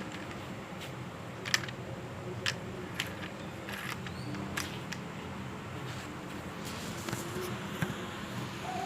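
Small plastic transforming toy car being handled, giving a few scattered sharp clicks over a steady background hum.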